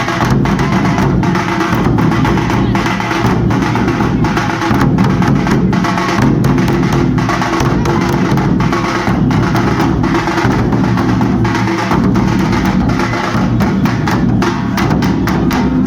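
Halgi frame drums and jaggalige drums beaten with sticks in a dense, continuous rhythm of many strokes. The drumming is loud.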